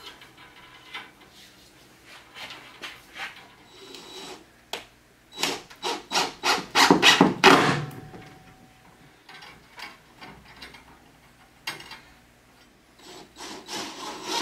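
Repeated rasping, rubbing strokes as a thermal expansion tank is turned by hand onto a Teflon-taped threaded pipe fitting. A fast run of strokes about six to eight seconds in is the loudest, and another run starts near the end.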